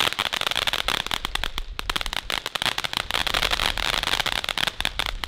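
Ground-level firework spraying white sparks, giving a steady hiss with a dense run of rapid small crackles.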